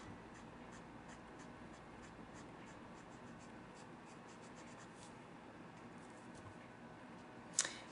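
Faint, light scratching of a Copic alcohol-marker nib feathered over paper in quick short strokes, a few a second, blending two brown shades together.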